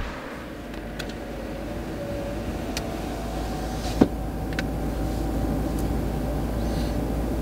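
A car driving: a steady low rumble of engine and road noise that slowly grows louder, with one sharp click about four seconds in.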